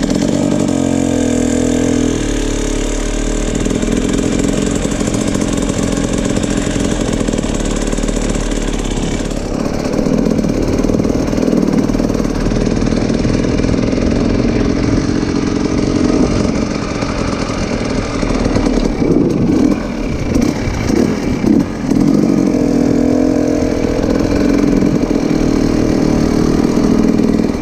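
An off-road vehicle engine running close by, with its pitch rising and falling as it is revved and eased off.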